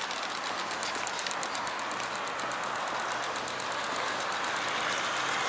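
Steady rush of road traffic, growing slightly louder, with the fast ticking of a pedestrian crossing's signal fading out in the first second or two.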